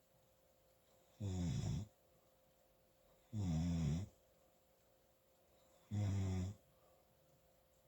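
Loud snoring from a sleeper: three short snores, each about half a second long, evenly spaced about two and a half seconds apart.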